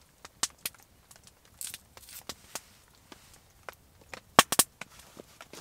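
Spruce wood fire crackling, with irregular sharp pops and a quick cluster of loud pops about four and a half seconds in.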